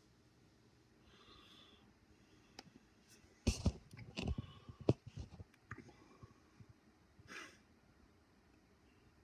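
Quiet room broken by a cluster of sharp clicks and knocks between about three and a half and five seconds in, with a few faint short hisses before and after.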